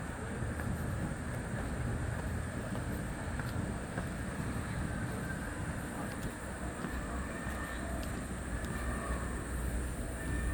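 Steady low rumble of outdoor ambience in a bird park, with a few faint bird chirps in the later seconds.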